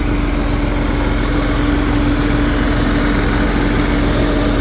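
Concrete pump truck's engine idling steadily, with a constant hum.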